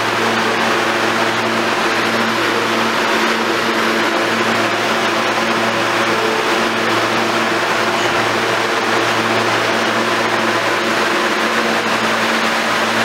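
R160 subway train standing at the platform, giving a steady low hum under an even hiss.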